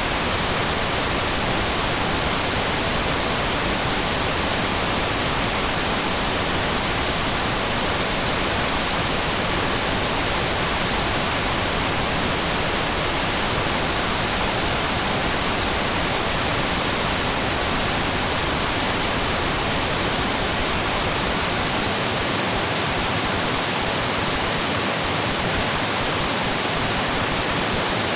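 Television static: a steady, loud hiss of white noise with no tones or breaks.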